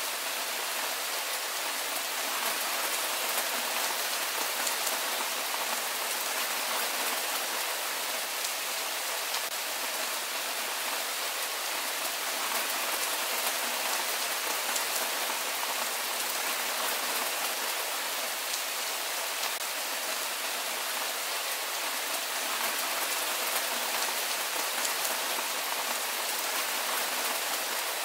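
Steady rain falling, an even hiss with a fine patter of drops that holds at the same strength throughout.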